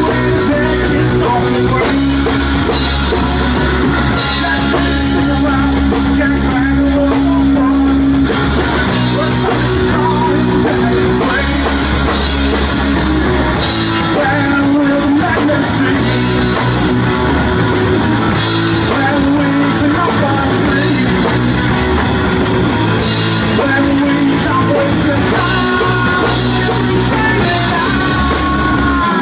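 Live rock band playing loud, with electric guitar and drum kit and a singer's voice; sustained low notes underneath change twice.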